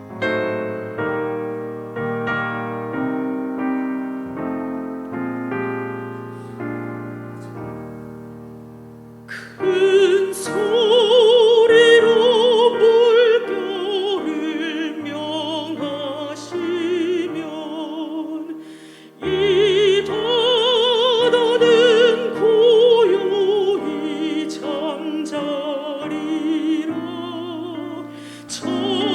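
Piano playing a hymn accompaniment alone, then, about nine seconds in, a solo classically trained voice enters singing over it with a wide vibrato. The singing breaks off briefly about two-thirds of the way through and then resumes.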